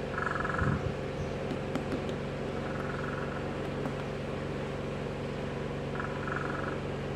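A steady low machine hum runs underneath, with light knocks and clicks as the small metal planetary gears and gear housing of a cordless drill are handled. A brief high buzzy sound comes three times.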